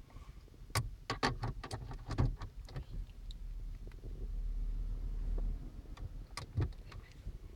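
Hands handling a car charger and its cable at a car's centre console: a run of sharp clicks and taps over the first few seconds, a low rumble in the middle, and one more knock near the end.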